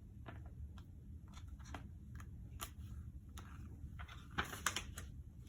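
Faint paper rustling and small clicks as a page of a homemade book is turned, with a louder rustle about four and a half seconds in.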